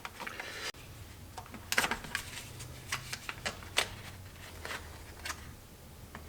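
Scattered light clicks and taps of hands handling and working on a dust collection hose, over a faint low hum.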